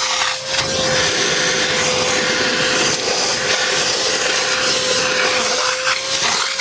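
Harbor Freight wet/dry shop vacuum running, a steady motor whine over a loud rush of air, as it vacuums out the wet, dirty car interior.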